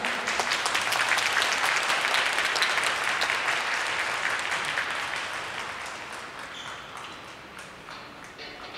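Audience applauding at the end of a cheerleading routine, the clapping dense at first and gradually dying away.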